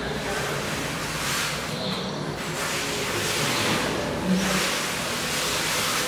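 A broom brushing across a large sheet of paper on the floor in long, repeated swishes that swell and fade every second or two.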